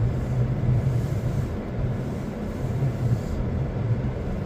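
A car's engine and road noise heard from inside the car while driving slowly: a steady low drone.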